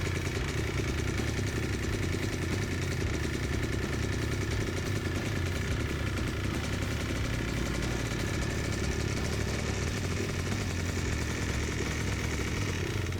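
Yamaha Blaster 200 big-bore single-cylinder two-stroke engine idling steadily, with no revving, while it is left running to burn the carburettor dry so the pilot jet doesn't clog. The owner says the engine is low on compression.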